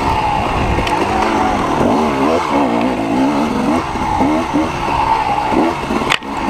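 Dirt bike engine revving up and down repeatedly as the throttle is opened and closed on an enduro trail, with a sudden brief drop in loudness about six seconds in.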